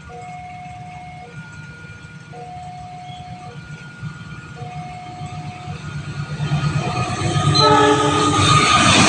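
A railway level-crossing alarm repeats a two-tone electronic signal, a long high tone and then a short lower one, about every two seconds. From about two-thirds of the way in an approaching train's rumble grows louder, and near the end the train's horn sounds briefly as the train arrives.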